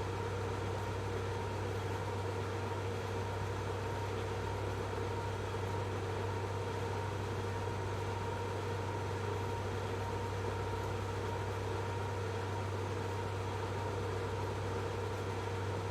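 Steady hum of packaging-line machinery, with a strong constant low hum and a couple of fainter steady tones above it, unchanging throughout.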